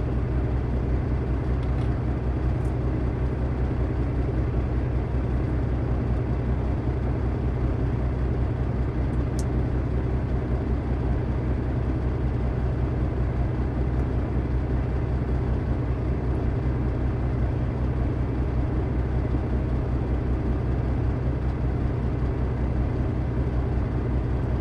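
Diesel engine running steadily, a low even drone, with a couple of faint short clicks about nine and fourteen seconds in.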